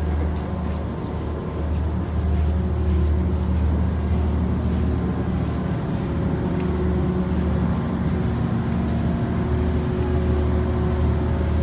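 Steady low rumble with a faint constant hum running under it.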